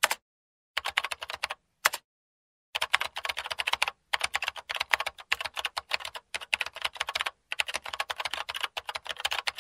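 Typing sound effect: rapid key clicks in quick runs, broken by short dead-silent pauses.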